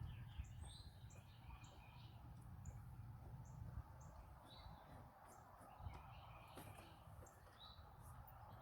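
Near silence: faint bird chirps in the background over a low steady hum.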